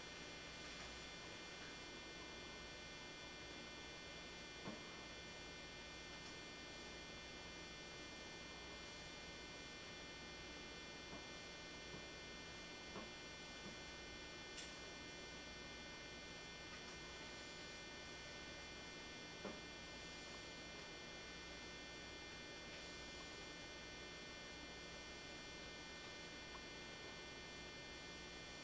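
Faint, steady electrical hum and buzz with many even overtones, broken by a few soft ticks.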